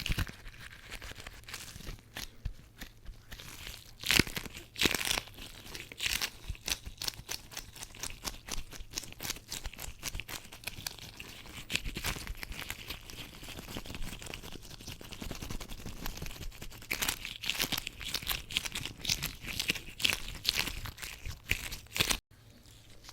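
Tweezers worked by latex-gloved hands: a dense run of quick, irregular clicks mixed with crinkly rubbing of the gloves. There are louder flurries about four seconds in and again near the end.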